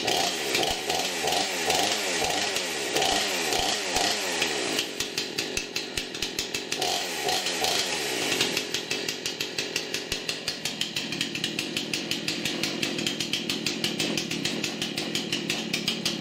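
Craftsman S205 46 cc two-stroke chainsaw running on a cold start. Its throttle is blipped over and over, so the engine revs up and down for the first several seconds and again briefly in the middle, then it runs at a steadier, lower speed with an uneven pulse.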